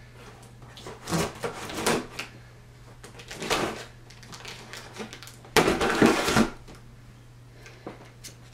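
Scissors cutting through the packing tape on a cardboard shipping box, in a few short bursts, the longest and loudest about six seconds in.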